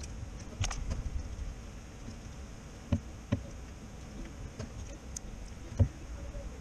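Scattered light clicks and knocks of metal parts being handled at a starter motor: a few about a second in, two sharp knocks around three seconds in, and the loudest one near the end, over a steady low background rumble.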